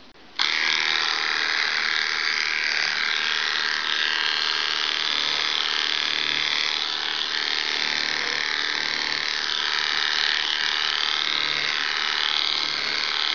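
Electric dog grooming clippers switching on about half a second in and running steadily, their pitch wavering slightly as the blade works through a West Highland white terrier's wet, matted coat.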